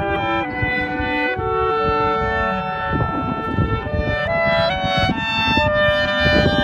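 A clarinet ensemble playing together in harmony, several parts holding notes and moving from chord to chord.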